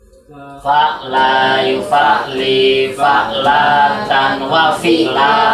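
Male voices chanting a recitation together in a sing-song melody, starting about half a second in and going on in short phrases of about a second each.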